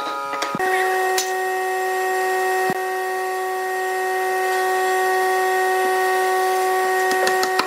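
Steady hum of a running machine in a woodworking shop, holding several fixed pitches, with a few light knocks of wooden pieces being handled and a quick run of taps near the end.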